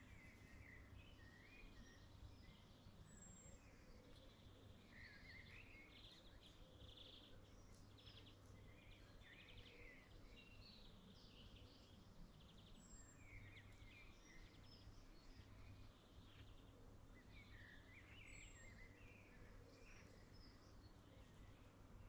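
Faint spring birdsong: several small birds chirping and trilling in short phrases, over a steady low background rumble.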